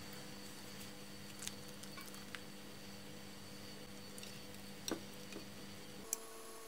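Low steady electrical hum with a few faint clicks and light taps, the loudest about five seconds in, as a metal spatula sets pieces of apple marmalade on a china plate. The hum shifts near the end.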